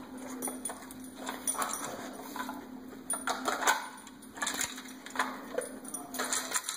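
Hard plastic dog puzzle toy clattering as a dog noses and shoves its layers, making irregular clicks and knocks, with the loudest knock about three and a half seconds in. A faint steady hum sits underneath.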